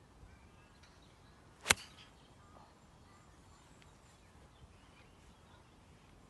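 A golf iron striking the ball in a full swing: one sharp, crisp click about a second and a half in. Faint birdsong sits under it.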